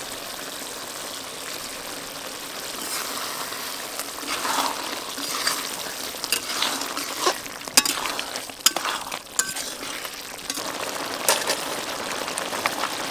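Fish and brinjal curry sizzling in a metal kadai. From about four seconds in, a spatula stirs it, clicking and scraping against the pan several times.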